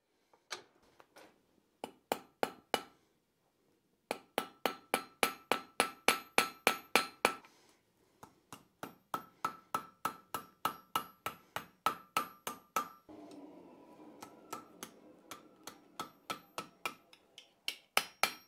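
Hand hammer striking hot steel flat bar on an anvil, in quick runs of about three to four blows a second, with the anvil ringing between blows. The first few seconds hold only a few scattered strikes. A steady low hum joins in about two-thirds of the way through.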